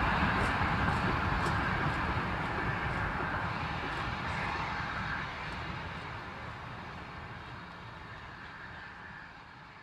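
A train running away into the distance: a steady rumble with a few faint clicks in the first couple of seconds, fading away evenly.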